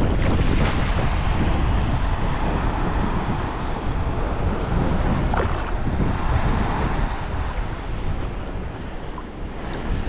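Sea waves washing and splashing in choppy water, with heavy wind rumble on the microphone.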